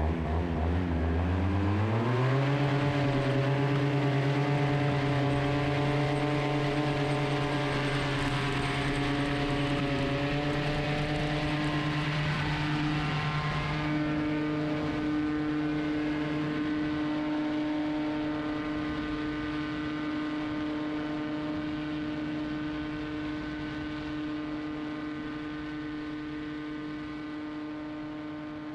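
Vittorazi Moster two-stroke paramotor engine throttling up to full power, its pitch rising over about a second, then running steady at high revs through the takeoff and climb. A rushing noise under it stops about halfway through, and the engine grows gradually quieter near the end.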